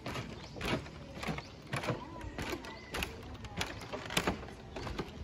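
Footsteps on the bamboo slats of a hanging bridge, sharp knocks about two a second.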